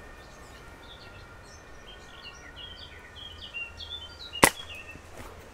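A single sharp shot from a .177 CO2-powered Hämmerli 850 AirMagnum bolt-action air rifle about four and a half seconds in, with birds chirping in the background.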